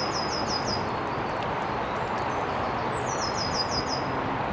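Steady rush of flowing river water, with a small songbird singing a quick run of about six high, down-slurred notes twice: once at the start and again about three seconds in.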